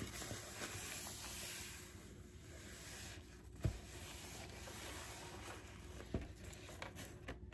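A paper towel wiped back and forth across a hard tabletop, a steady rubbing hiss, with two soft knocks, one about halfway through and one near the end.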